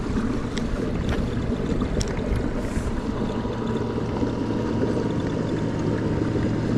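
Kayak under way on the water: a steady rush of water with a low hum, and a few light ticks in the first couple of seconds.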